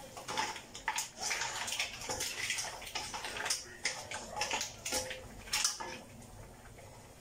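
Wooden spatula stirring shrimp, mussels, corn and potatoes in a wet sauce in a stainless steel wok: irregular wet scraping and knocking of food against the metal, dying down near the end.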